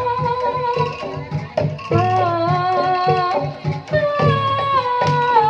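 Jaranan gamelan music played live: a long held melody line, jumping higher about two seconds in and stepping down near the end, over a steady kendang hand-drum pattern.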